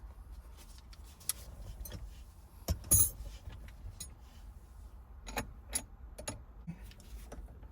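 Scattered metallic clicks and clinks of small parts and hand tools being handled while a shifter cable clip and its fastening are fitted, the loudest knock about three seconds in, over a low steady hum.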